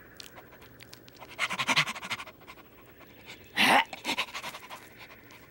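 A puppy panting in quick breaths, in a few short spells, the loudest one a little past halfway.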